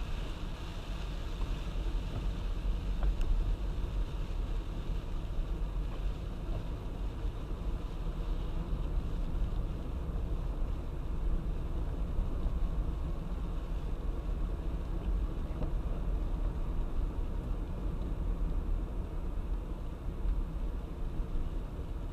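Car driving in heavy rain on a wet road: a steady low rumble of road and tyre noise under a hiss of rain and spray, the hiss easing off somewhat over the first several seconds.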